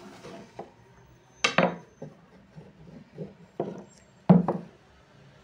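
Wooden rolling pins knocking on a wooden table as dough is rolled out: a sharp knock about a second and a half in, then two more close together a little past halfway, each ringing briefly.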